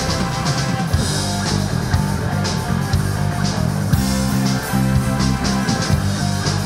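Rock band playing: electric guitar, bass guitar and drum kit, with cymbal hits about once a second.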